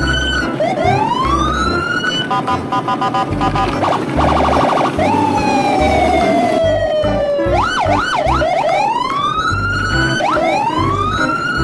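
Electronic siren sound effects over a thumping beat: repeated rising whoops, then a run of quick beeps, a long falling tone and a fast warble, then rising whoops again.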